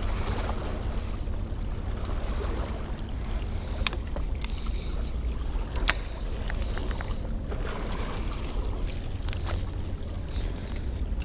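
Steady low rumble of wind buffeting a chest-mounted action camera's microphone, with two sharp clicks, about four and six seconds in.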